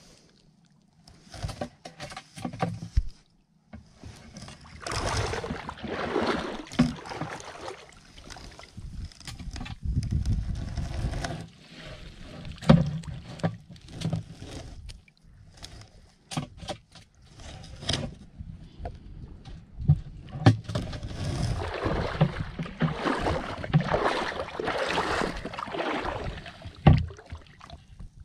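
Shallow water sloshing and splashing in irregular bursts as a long-handled scoop net and a stick are swept and lifted through it, with scattered sharp knocks.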